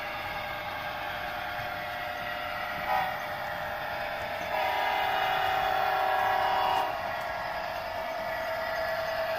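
Model diesel locomotive's onboard sound system blowing its horn: a short toot about three seconds in, then a longer held blast of several tones for about two seconds, over the locomotive's steady running sound.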